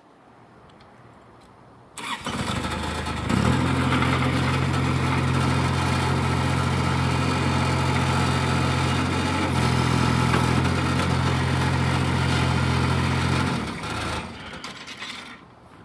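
Skid steer engine cranking and starting about two seconds in, then running steadily at idle; the sound drops away near the end.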